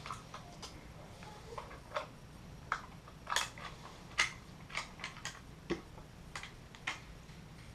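Light, irregular clicks and clacks of handling: sling clips, buckles and hardware knocking against an airsoft rifle, about a dozen or more sharp ticks scattered unevenly.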